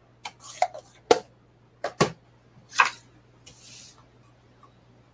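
Plastic ink pad cases being closed and set aside on the table: a series of light clicks and taps, with a brief soft rustle about three and a half seconds in.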